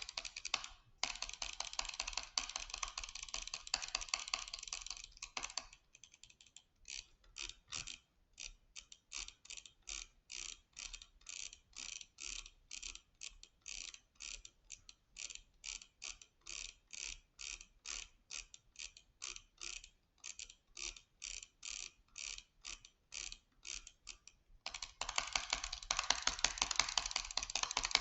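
Small mechanical clicking. A dense, rapid run for the first few seconds, then separate clicks at about three a second, then a rapid run again near the end.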